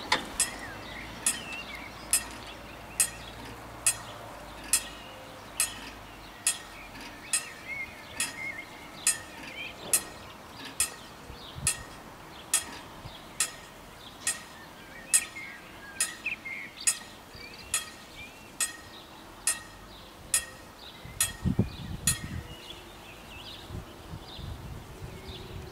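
Level-crossing warning bell striking single sharp dings at a little more than one a second, then stopping after about twenty seconds, with birds chirping in the background. A brief low rumble comes near the end.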